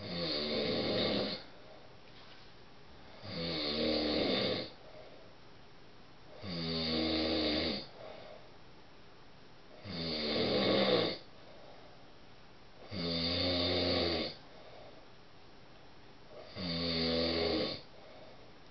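A man snoring loudly in his sleep: six snores, each about a second and a half long, one every three seconds or so, with quiet between them.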